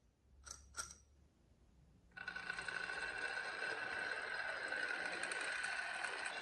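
Marbles clicking sharply twice, then from about two seconds in a continuous rattle of many marbles rolling down the wooden track of a HABA marble run.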